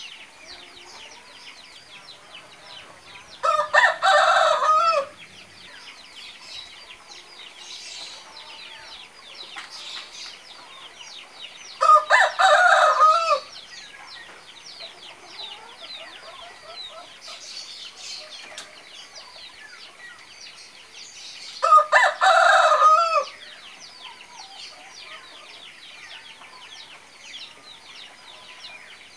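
Rooster crowing three times, each crow about a second and a half long and roughly nine seconds apart, over a steady background of many small high chirps.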